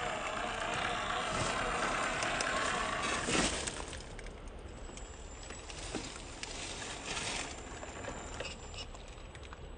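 Small 1/10-scale RC crawler driving over rough ground, its electric motor and gears running. The sound is fuller for the first three seconds or so, with a sharp knock about three and a half seconds in, then drops to a quieter stretch of scattered ticks and knocks.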